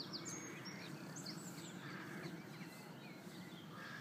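Songbirds chirping, with short high calls scattered through, over a steady low background hum.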